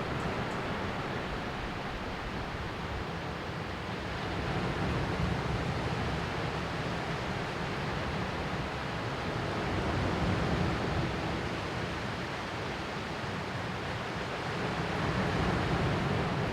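Ocean waves washing on a shore: a continuous surf rush that swells gently three times, about every five or six seconds, as sets of waves come in.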